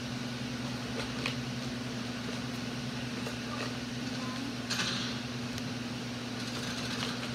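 A steady low mechanical hum, with faint scratches of a coloured pencil on sketchbook paper and a short rustle a little under five seconds in.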